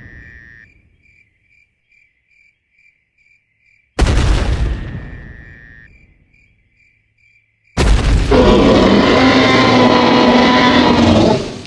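Dinosaur sound-effect sequence: faint chirping about twice a second, then a single deep boom that dies away over a couple of seconds, then a loud dinosaur roar held for about three and a half seconds that stops abruptly.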